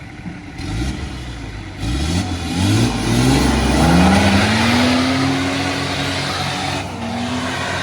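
Off-road 4x4 engine revving under load: several short rising revs, then held at high revs for a few seconds, easing slightly near the end.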